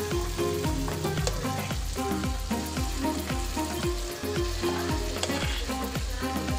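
Unniyappam batter frying in sesame oil in the cavities of an appam pan: the hot oil sizzles and bubbles steadily as more batter is spooned in. Background music with a steady beat runs underneath.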